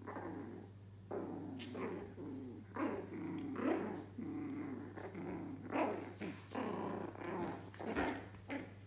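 Two Yorkshire terrier puppies, about three months old, growling at each other in play-fighting: a string of short growls that rise and fall in pitch, with a few sharper yips among them.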